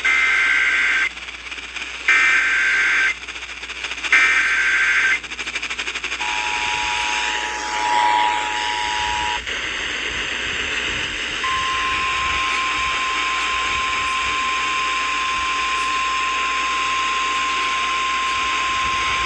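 Emergency Alert System broadcast over radio hiss. It opens with the SAME header: three warbling digital data bursts of about a second each, a second apart. The two-tone attention signal follows for about three seconds, then a long, steady single alert tone starts about eleven seconds in.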